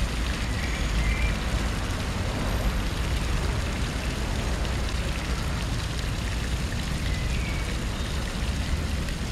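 Steady outdoor noise: an even, rain-like hiss over a strong low rumble, with no clear single event.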